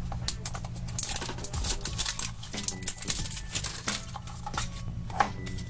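Hands handling and opening a plastic Mashems blind capsule: a steady run of small plastic clicks, taps and crinkles as the capsule is turned over and worked open.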